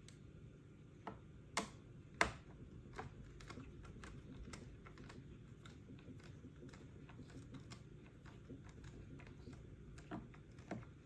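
Precision screwdriver working the screw in a Dyson V11 handle: a few sharp clicks as the bit is set into the screw head, the loudest about two seconds in, then a long run of small ticks as the screw is turned, and two more clicks near the end.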